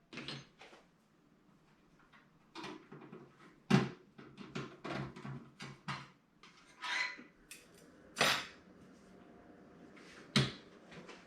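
Clicks, knocks and short scrapes of a graphics card and its metal case parts being handled and fitted into a PC case, with the sharpest knock about four seconds in and two more near the end.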